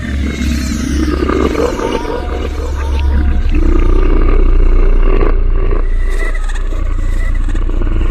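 A monstrous demonic roaring growl over a steady deep drone, in a layered horror sound-effect mix.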